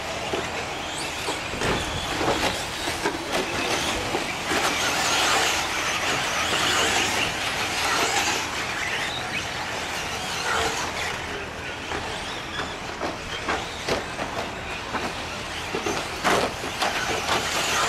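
Radio-controlled 4x4 short course trucks racing on a dirt track: a steady mix of their electric motors and tyres on the dirt, with scattered sharp knocks from landings and hits.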